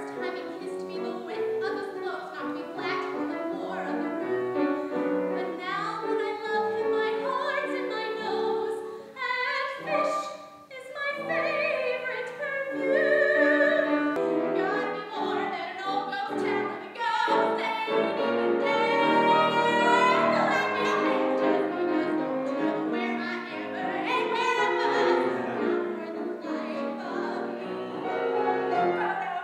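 A woman singing classical art song in operatic style with vibrato, accompanied on a grand piano, with a brief break about ten seconds in.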